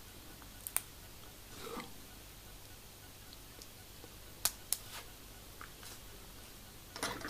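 Small screw and screwdriver clicking and tapping against the model's frame parts while trying to seat the screw: a few short, sharp clicks, mostly in pairs, with a soft rustle about two seconds in.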